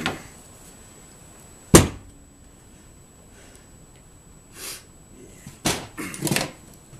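Workshop knocks: one sharp knock a little under two seconds in, then a softer scrape and a quick cluster of knocks and clatter near the end, from parts and tools being handled around a wooden workbench.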